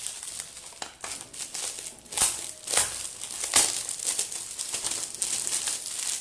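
Gift-wrapping paper crinkling and crackling as a present is unwrapped by hand, with a few sharper, louder crackles about two to four seconds in.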